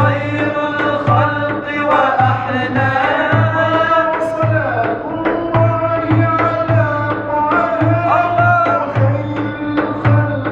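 A small group of men singing an Islamic devotional ibtihal together in a melismatic Middle Eastern style, accompanied by a hand frame drum beating a steady rhythm of deep strokes and sharper slaps.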